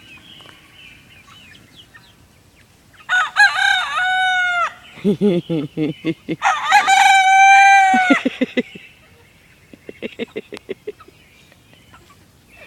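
A rooster crows twice: one crow about three seconds in and a longer one about six seconds in. Between and after the crows come runs of rapid, low clucking.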